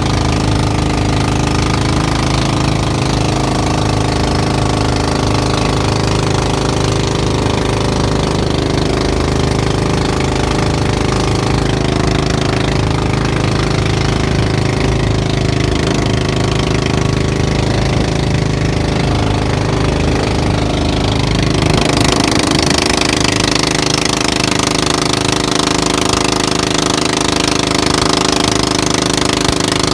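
Outrigger boat's engine running steadily at cruising speed, a loud continuous mechanical drone. About two-thirds of the way through, the hiss of water rushing and spraying along the hull and outrigger grows louder.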